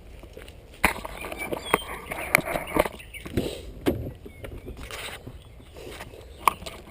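Footsteps and scuffing over a debris-strewn floor, with irregular knocks and rustles starting about a second in.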